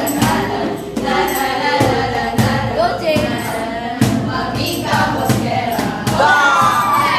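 A group of young voices singing together in chorus, accompanied by a tambourine and regular hand-drum beats.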